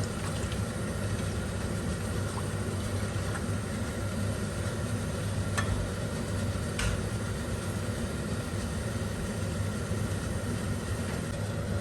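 Steady low hum and rumble in the kitchen while milk heats in a pan on a medium flame, with two faint light clicks about halfway through.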